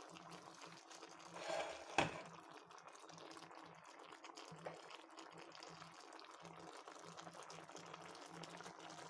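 Coconut-milk stew of green beans, radish and meatballs bubbling in the pot at a boil, a faint steady crackling. A single sharp click about two seconds in.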